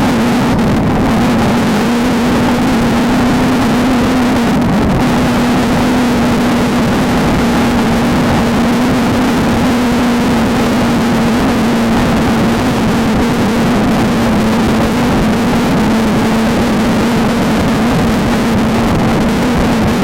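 Off-road race car's engine running at nearly steady revs, over heavy, continuous road and wind noise.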